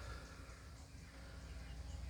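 Faint outdoor ambience: a steady low rumble with a faint thin high call near the start.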